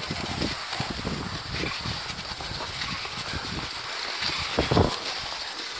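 Wind buffeting the microphone in irregular low gusts over a steady hiss, with one stronger gust a little before the end.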